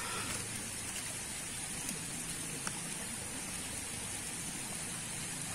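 Steady, fairly quiet outdoor background noise: an even hiss with a high band and a faint low hum, with no distinct event.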